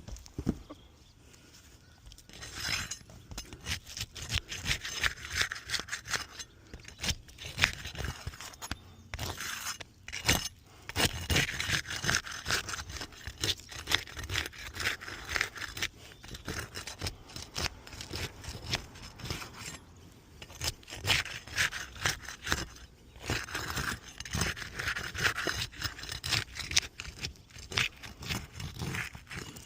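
Scraping and prying at asphalt roof shingles, with many short clicks and knocks, in several spells broken by brief pauses.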